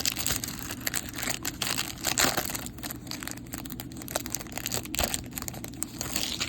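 Plastic poly pack of trading cards crinkling and crackling as it is handled and torn open by hand, in a rapid irregular run of small crackles.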